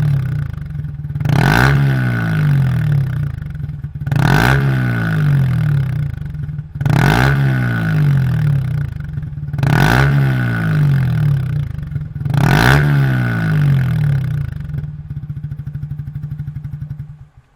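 Yamaha YZF-R15's single-cylinder engine breathing through a Yoshimura Hepta Force full-system exhaust, blipped five times in steady succession, each rev falling back to a loud idle. It then idles with an even pulse and cuts off just before the end.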